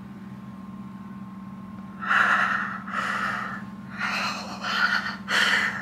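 A woman gasping for breath in a fit of emotion: five sharp, breathy gasps in quick succession beginning about two seconds in. A steady low hum runs underneath.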